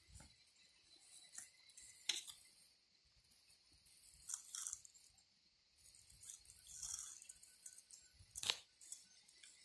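Faint, scattered crunching and rustling as a Hermann's tortoise forages in grass and dry straw, tearing at plants. The sharpest crunches come about two seconds in and near the end.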